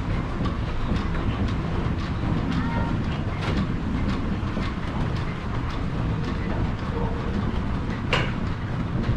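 Water-wheel-driven mill machinery running: line shaft, belts and gearing clattering steadily with many small knocks, and one sharp click about eight seconds in.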